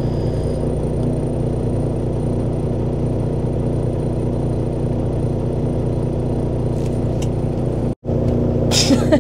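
Semi truck's diesel engine idling steadily, heard from inside the cab as an even low rumble. The sound drops out for an instant about eight seconds in, at an edit.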